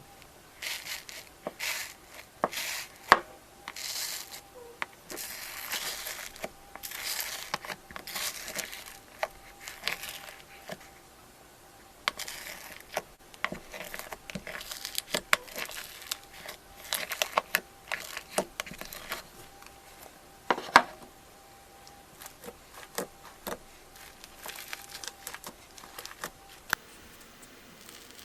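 Crunchy slime being pressed and squeezed, crackling and crinkling in irregular bursts with sharp pops, with a short lull about eleven seconds in.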